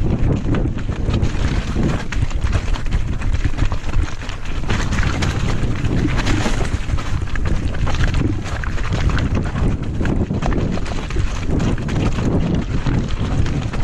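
Wind rushing over a GoPro's microphone as a full-suspension mountain bike rides a rough trail, with tyre noise on dirt and rock and a steady clatter of small knocks and rattles from the bike.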